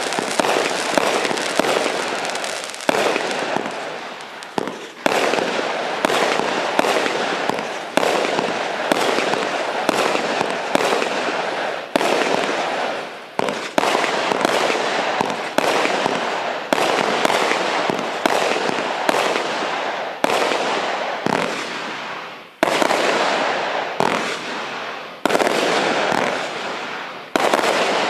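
Thunderbolt firework cake by Cube Fireworks firing a sustained barrage: sharp reports one after another, roughly one to three a second, over a continuous noisy rush of sound between them.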